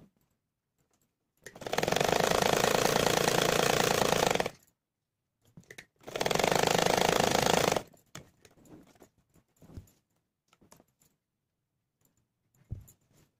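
Sewing machine stitching in two runs, the first about three seconds long and the second shorter, a fast even clatter of the needle. Between and after the runs come faint clicks of cloth being handled and a soft thump near the end.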